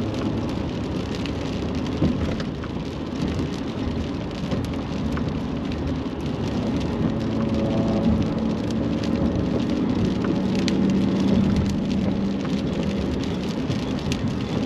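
Road noise inside a vehicle travelling at highway speed: a steady hiss of tyres on wet pavement over a low engine drone, which grows louder in the second half and eases off near the end.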